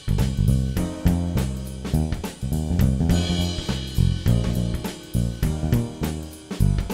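Background music with a steady drum beat over bass and guitar.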